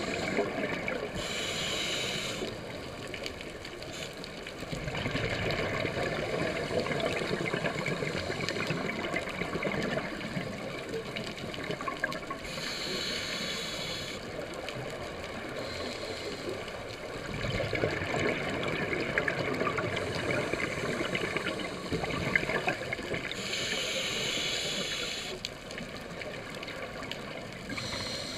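Underwater scuba breathing through a regulator: exhaled bubbles rumble and gurgle throughout, and a brighter hiss comes three times, about eleven seconds apart.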